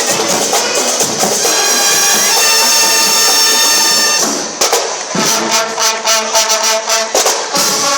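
A school band playing brass music: long held brass chords, then sharp percussion strokes come in with the brass about four and a half seconds in.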